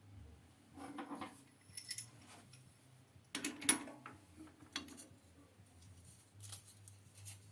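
Light metallic clinks and rattles of a machined part and tools being handled, in a few short bursts, the loudest about three and a half seconds in, over a faint low hum.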